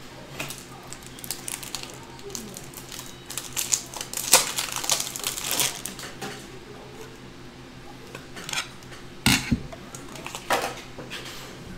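Cards, hard plastic card holders and boxes being handled on a table, clicking and clattering. There is a run of rapid clicks and rustling about four seconds in, and two sharper knocks near the end.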